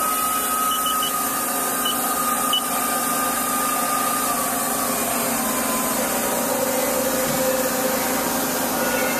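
Spindle of a Mori Seiki SL-25MC CNC lathe running under power, a steady motor whine that shifts in pitch partway through as the speed changes.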